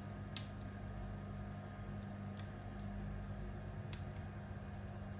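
Steady low electrical hum from workbench equipment, with three faint clicks: one about half a second in, one a little after two seconds, and one near four seconds.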